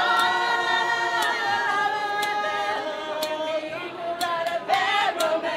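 Music: a voice singing long held notes, with a sharp beat about once a second.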